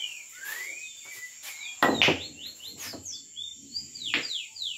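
A sinuca shot: a sharp double clack of cue and balls about two seconds in, and another ball click a little after four seconds. Birds chirp throughout in the background.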